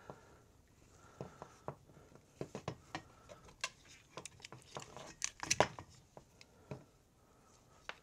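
Scattered small clicks, taps and rustles of a recoil starter's nylon pull cord being worked out of its plastic T-handle by hand, loudest a little past halfway through.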